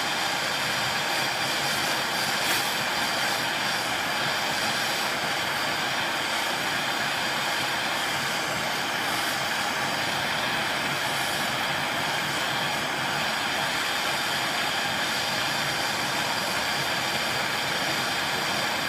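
Gas torch flame burning with a steady, unbroken hiss while it heats an enamel-coated copper piece from below, firing the enamel.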